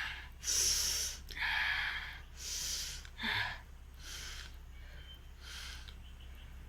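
A person snorting and sniffing sharply through the nose, about six short breaths, the later ones fainter.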